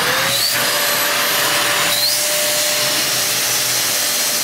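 Deerma DX115C handheld stick vacuum cleaner running, its motor whine rising as it spins up in the first moments and then holding a steady pitch under a loud rush of air.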